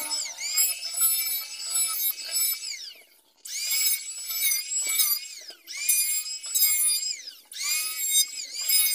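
Electric hand planer running and cutting along a wooden door panel. Its high whine sags in pitch and recovers several times as the blade bites into the wood, and it cuts out briefly about three seconds in.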